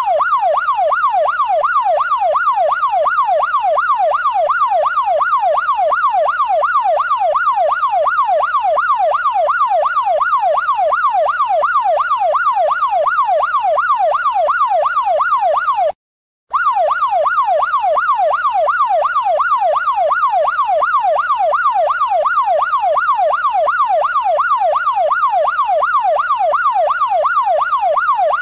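Electronic police siren in yelp mode: a fast up-and-down wail repeating about three times a second. It cuts out for about half a second roughly sixteen seconds in, then starts again.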